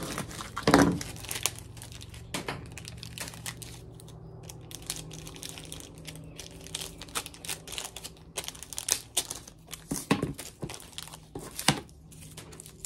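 Plastic packaging crinkling and crackling as it is handled and opened by hand. A few louder crackles come about a second in and again near the end.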